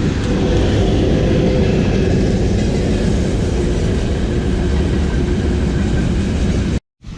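Strong wind buffeting the microphone: a loud, steady rumble and rush that cuts off suddenly near the end.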